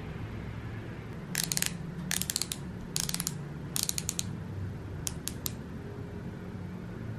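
Twist-up lip crayon being turned in the fingers, its plastic twist mechanism giving four short runs of rapid ratcheting clicks, then three single clicks.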